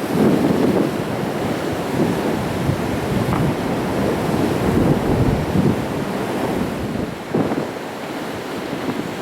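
Sea waves breaking and washing against rocks in irregular swells, with wind buffeting the microphone.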